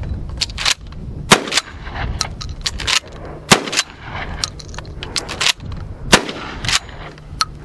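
A 12-gauge pump-action shotgun fired a couple of times, each shot a sharp blast. Between the shots come the clacks of the slide being worked and shells being slapped into the open ejection port.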